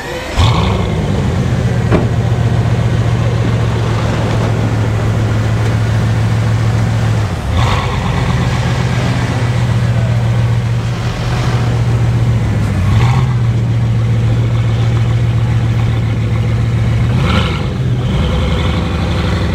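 Bugatti Veyron Grand Sport's 8.0-litre quad-turbo W16 starting up about half a second in, flaring briefly, then settling into a steady idle. The idle wavers briefly three times, near 7 s, 13 s and 17 s in.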